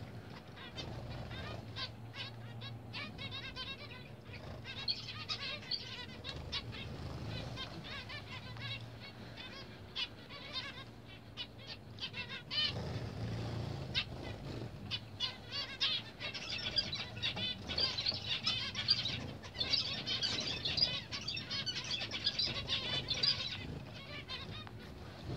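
A flock of zebra finches calling and singing in quick, overlapping chatter, busiest in the second half, with wings fluttering and splashing as they bathe in a bird bath.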